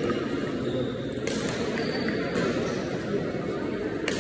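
Table tennis ball being hit back and forth in a rally: a few sharp clicks of ball on bat and table over a steady background of crowd chatter.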